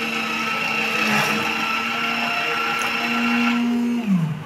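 Coffee vending machine dispensing a drink into a paper cup, its mixing motor running with a steady hum over a hiss, then slowing and stopping near the end.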